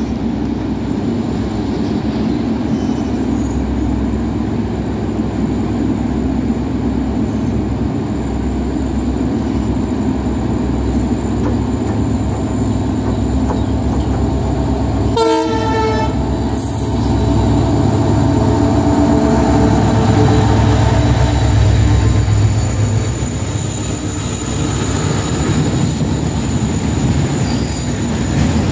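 WDG-4G diesel locomotive hauling a goods train, its engine running steadily as it approaches slowly on the adjacent track, with a short horn blast about halfway through. The engine grows louder as the locomotive draws level and passes, then the freight wagons roll by with some wheel squeal near the end.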